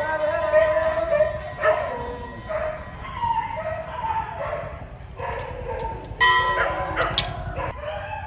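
Dogs whining and howling in wavering tones, with sharp barks about six and seven seconds in.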